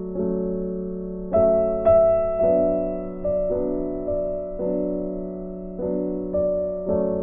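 Background music: a slow piano melody, with a new note or chord struck about every half second to a second.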